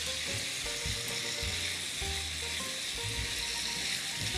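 Chicken pieces frying in oil in a pan, giving a steady sizzle, with a spatula stirring them.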